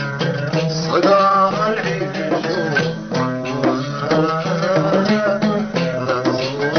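Somali qaraami song: singing over a plucked string accompaniment with light hand-drum percussion.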